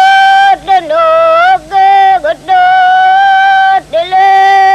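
A single voice singing a slow, chant-like line of long held notes, each about a second or more, sliding in pitch between notes with brief breaks.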